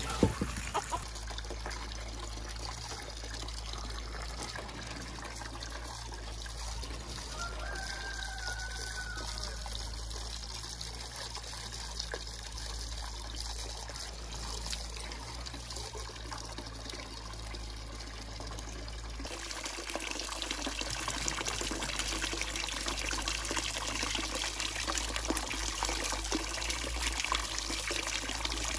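A steady stream of water running into a metal basin, splashing as green onions are swished and rinsed in it by hand. The water grows louder about two-thirds of the way through.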